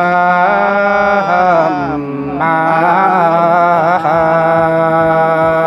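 A single voice singing a slow, chant-like traditional Dao wedding song unaccompanied: long held notes joined by sliding, wavering turns in pitch, with a short break about two seconds in.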